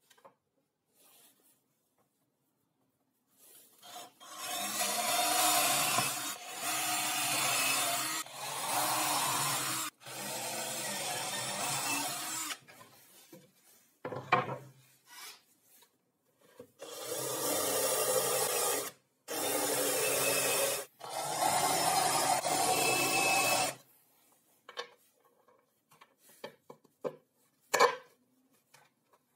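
Power drill boring holes through plywood in about seven runs of two to three seconds each, a motor hum under the noise of the bit cutting wood, with a pause in the middle. Light clicks and taps near the end.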